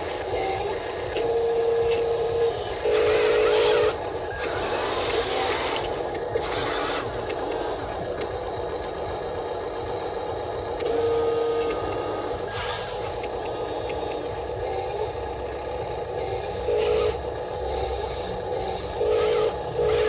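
Remote-control Huina wheel loader working a gravel pile: its small electric motors whine in short bursts, some buzzing and some smooth, as the arm and bucket move. Gravel scrapes and clatters against the bucket several times.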